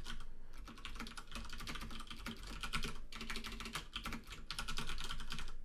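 Typing on a computer keyboard: a run of rapid keystrokes with a couple of brief pauses.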